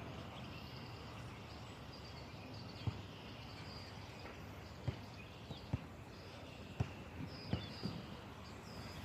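Faint outdoor background noise with birds chirping in the distance and about half a dozen short, sharp knocks scattered through the second half.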